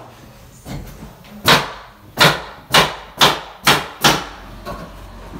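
Hammering: six sharp strikes, about two a second, beginning about a second and a half in.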